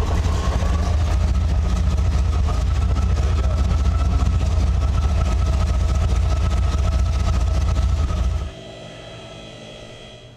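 Rolls-Royce Merlin V-12 aero engine running just after a cold start, a steady deep pulsing exhaust note. It cuts off suddenly about eight and a half seconds in, leaving only a faint background.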